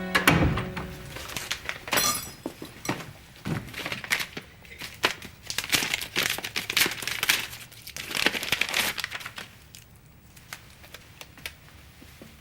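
Irregular crinkling, rustling and clicking handling sounds, dense for about nine seconds and then thinning to faint scattered clicks.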